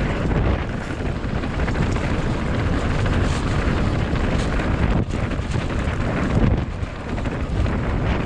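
Wind rushing over the camera microphone while a mountain bike rolls fast down a rough downhill trail, its tyres and frame rattling with many small knocks over rocks and roots.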